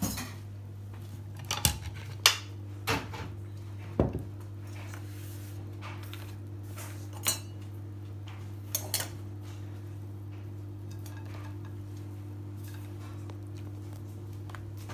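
Kitchen dishes and utensils clinking and knocking as they are moved about: about eight sharp knocks and clinks in the first nine seconds, over a steady low hum that carries on alone afterwards.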